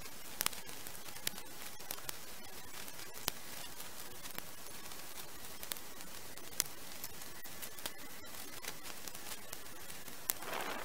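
Scattered sharp snaps and clicks of dry twigs and branches breaking as brush is gathered into a bulk bag, over a steady hiss. A louder rustling starts near the end.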